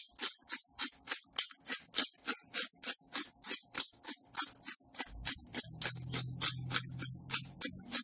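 Pepper grinder being twisted over a tray of vegetables, grinding black peppercorns: a rapid, even run of gritty crunching clicks, about five a second, that stops near the end.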